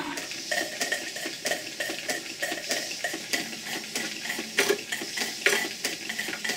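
Model steam plant with a Cotswold Heritage Cyclops engine and a beam engine running together on live steam: a steady, rapid metallic clicking and clatter from the moving parts, over a steam hiss.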